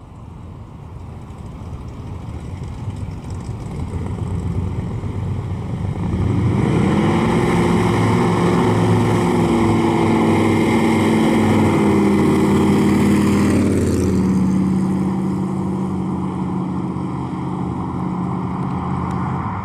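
1974 Plymouth Barracuda's 440 V8 running through side pipes as the car drives by. The exhaust note grows louder over the first few seconds and rises in pitch under acceleration, holds loud and steady, then drops in pitch about two-thirds of the way through and slowly fades as the car pulls away.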